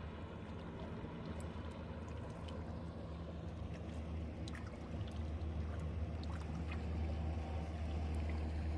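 Steady low engine hum of a boat motor idling in the harbour, growing slightly louder, with a few faint light splashes of small fish jumping at the surface.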